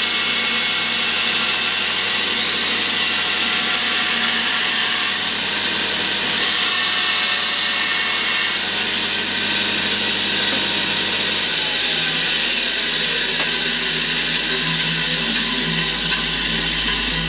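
A Charnwood B350 bandsaw running and cutting a piece of scrap pine at a 45-degree bevel: a loud, steady noise of motor and blade. A low hum drops out about two-thirds of the way through.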